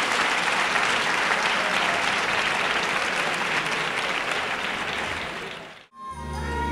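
Theatre audience applauding steadily. About six seconds in the applause drops away suddenly and an instrumental song introduction begins, with sustained bass notes.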